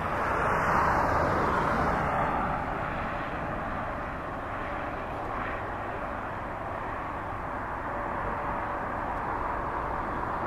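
Boeing 777-300 twin jet engines climbing away after takeoff: a steady rushing roar that swells in the first couple of seconds, eases in the middle and builds again near the end.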